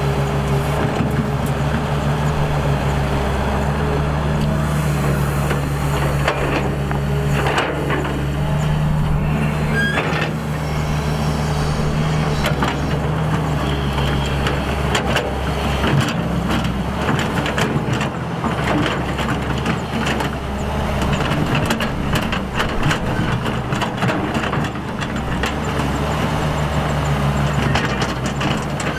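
Hydraulic excavator's diesel engine running steadily under working load, with frequent short knocks and clanks from about a fifth of the way in.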